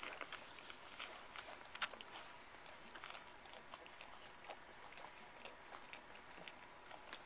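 Newborn French bulldog puppies suckling at their mother: faint, quick, irregular sucking clicks and smacks.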